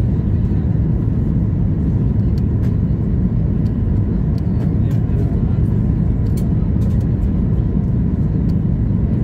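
Steady cabin noise of a Boeing 737 MAX 8 airliner in descent, heard from a passenger seat: an even, low rumble of its CFM LEAP-1B engines and the airflow over the fuselage, with a few faint scattered clicks.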